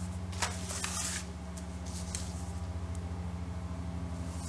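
Paper rustling and sliding in a few short swishes as a patterned-paper mat is lined up on a scrapbook album page, over a steady low hum.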